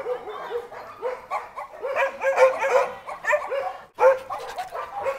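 Several dogs barking at once, a dense run of short overlapping barks with no let-up. It breaks off abruptly about four seconds in and starts again at once.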